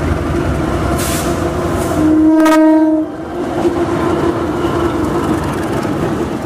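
CC 201 diesel-electric locomotive passing close with a passenger train, its engine and wheels rumbling steadily. About two seconds in it sounds its horn once, a single blast of about a second.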